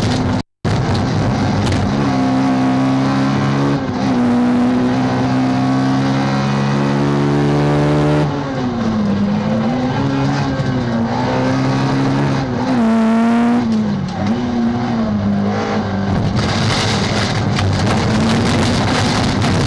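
Peugeot 206 rallycross car's engine heard from inside the cockpit at racing speed. It is held at steady high revs for several seconds, then rises and falls repeatedly as the driver lifts off and accelerates again through corners, over a constant rush of tyre and road noise. The sound cuts out for a split second near the start.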